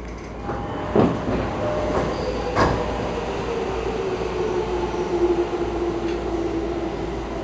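A Toei Shinjuku Line commuter train's sliding doors opening at a station stop: a clunk about a second in, then a thud about a second and a half later as they reach fully open. The car's steady hum runs underneath, with a tone that slowly falls in pitch.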